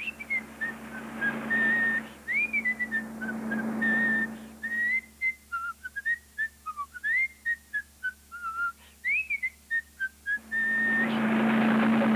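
A person whistling a wandering tune, one clear note line with short slides between held notes. Twice a rushing noise of a car driving past swells up beneath it, the louder pass near the end.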